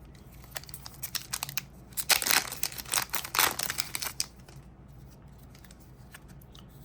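Foil trading-card booster pack crinkling and tearing open, a quick run of crisp rustles and snaps that is loudest between about two and three and a half seconds in, then a few soft ticks of cards being handled.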